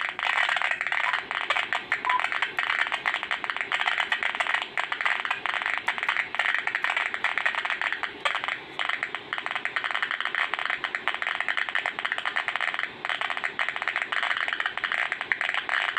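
uSDR (CN-SDX) HF transceiver receiving AM on the 40-metre band with no station tuned: its audio output is a steady hiss of band noise full of crackling static, cut off at both ends by the radio's narrow audio filter. The frequency is retuned by hand partway through.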